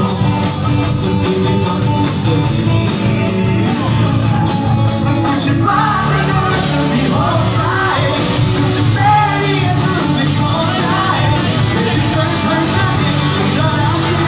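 Live rock band playing, with electric guitars and drums, and a singer coming in about five seconds in.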